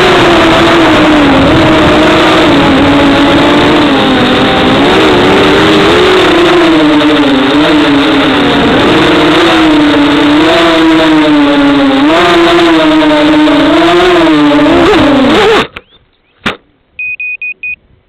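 FPV racing quadcopter's brushless motors and propellers whining, the pitch wavering up and down with the throttle as it flies. The whine cuts off suddenly near the end. A click and four short, high beeps follow.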